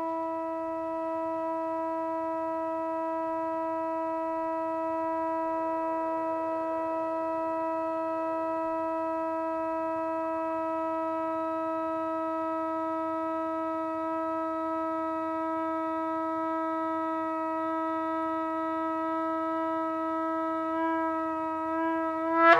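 Shofar blown in one long held note, steady in pitch with a row of overtones, that rises slightly and swells louder near the end.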